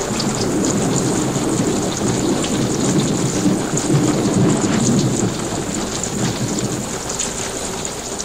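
Heavy rain with rumbling thunder: a dense, steady rush of noise with a low rumble that swells through the middle and fades near the end.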